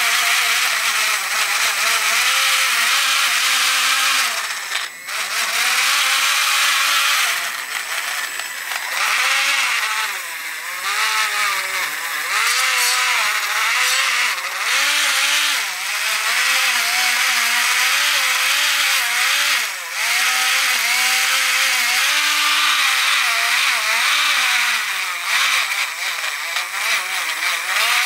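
Cordless rotary tool with a small wire-brush bit scrubbing grime off a vintage Honda mini engine case: a steady motor whine that wavers in pitch as the brush is pressed into the metal, over a harsh scrubbing hiss. The tool eases off briefly about five seconds in and again near twenty seconds.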